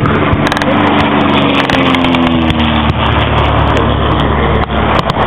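A low-flying single-engine propeller plane passes, its engine note falling in pitch about two to three seconds in, over a steady rumble and a few sharp cracks.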